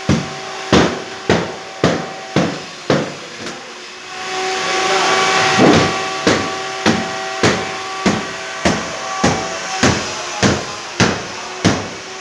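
Hammer blows on a nailed wooden packing crate, about two strikes a second with a short pause around four seconds in, as the crate is knocked apart to free the air conditioner unit. A steady hum runs underneath.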